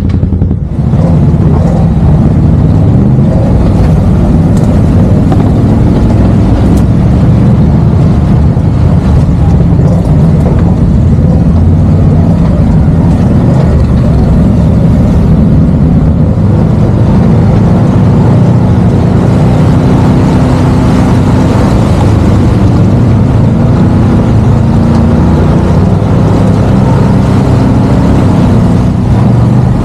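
Side-by-side UTV engine running steadily as the machine drives along a trail: a loud, low drone whose pitch shifts a little now and then.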